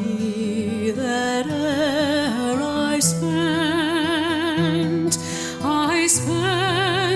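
Slow, gentle music: a voice sings long notes with a wavering vibrato over steady low held notes.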